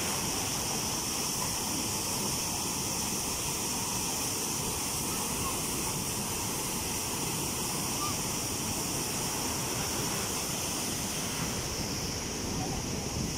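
Steady rushing of sandy water gushing out of a large beach-nourishment discharge pipe and crashing onto the sand.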